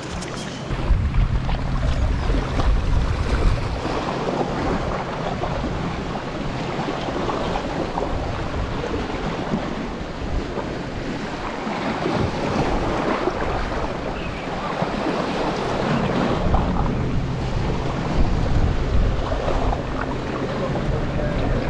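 Strong gusty wind buffeting the microphone over sea waves washing against a rocky shore. A heavy low rumble swells with the gusts about a second in and again near the end.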